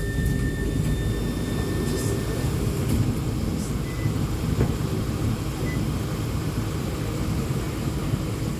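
E2-class tram running along the street, heard from inside the passenger cabin: a steady low rumble from the running gear on the rails. A thin, steady high whine sounds over it for the first two seconds or so.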